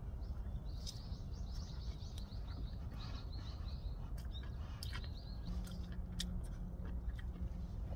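A small bird calling in a quick run of repeated high chirps, about five a second, for a couple of seconds, then a shorter run about five seconds in. Under it a steady low outdoor rumble and a few scattered clicks.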